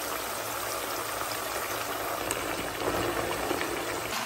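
Boiled mutton pieces deep-frying on high flame in plenty of hot oil in a kadai: a steady bubbling sizzle.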